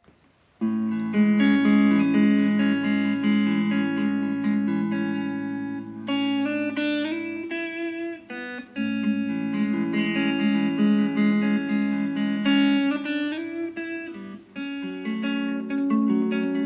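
Fender Player Stratocaster HSS Plus electric guitar played with a clean tone, picking arpeggiated chords note by note over held low notes. The playing starts about half a second in.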